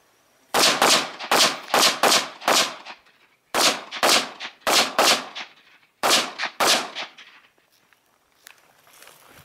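Semi-automatic rifle fired in rapid strings. There are about a dozen sharp shots in three groups of six, four and two, with pauses of about a second between groups. Each crack trails off in an echo.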